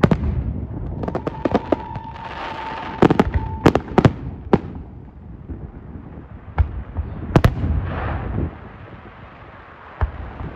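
Aerial fireworks shells bursting: a string of sharp bangs, bunched in the first half and sparser later, over rumbling echoes and patches of crackling. A steady high whistle sounds for about two seconds early on.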